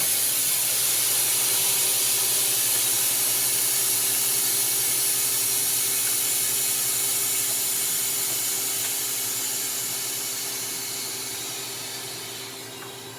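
Harvest Right freeze dryer's release valve opened at the end of a cycle: air hisses loudly into the vacuum chamber, breaking the vacuum. The hiss holds steady, then slowly fades over the last few seconds as the pressure evens out. The machine's steady hum runs underneath.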